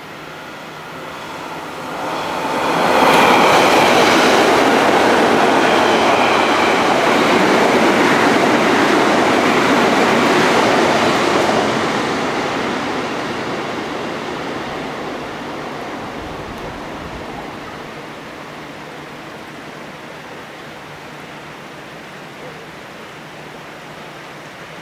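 Electric commuter train running past close along the platform track. It grows loud about two seconds in, holds for several seconds, then fades away slowly, with rain hiss underneath throughout.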